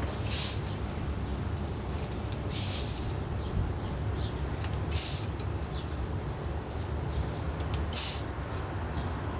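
Bicycle tyre being inflated with a hand pump: four strokes, each a short hiss of air, about two and a half seconds apart.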